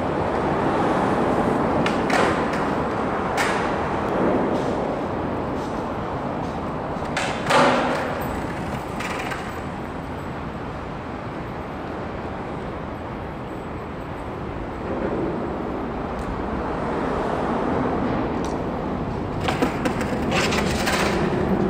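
Steady outdoor city noise of road traffic with wind on the microphone, broken by a few short knocks and clacks: the loudest about seven and a half seconds in and a quick cluster near the end.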